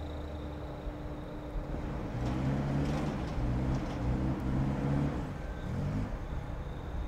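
A motor vehicle's engine running and revving up and down in pulses for a few seconds, over a steady hum and whine.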